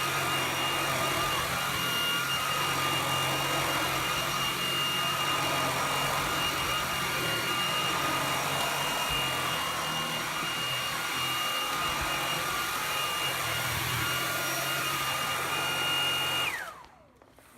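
Puppyoo T10 cordless stick vacuum running on its high setting while vacuuming a rug: a steady high whine over a low motor hum. It is switched off about a second before the end, and the whine falls away as the motor spins down.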